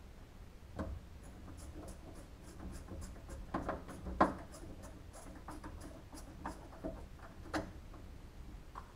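A screwdriver working a small mounting screw into a car door's vent-window frame: faint, scattered clicks and scrapes of the tool and screw, with one sharper click about four seconds in.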